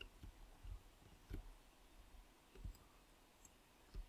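A few faint, scattered clicks of a computer mouse over near-silent room tone.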